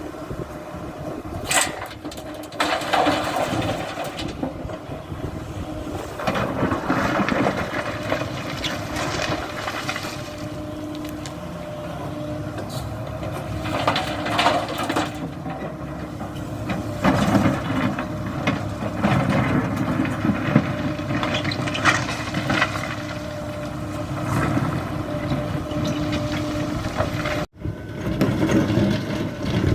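Kobelco SK75 excavator's diesel engine running steadily under work, with irregular scraping and clunking of the bucket working loose road-fill soil. The sound cuts out briefly near the end.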